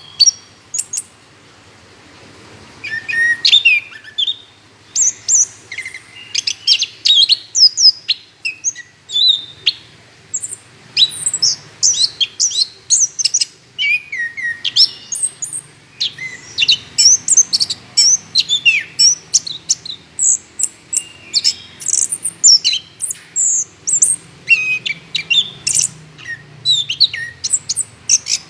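Chestnut-capped thrush (anis kembang) in full, continuous song: a fast run of short, varied, high whistled and chattering notes, with a brief pause about a second in.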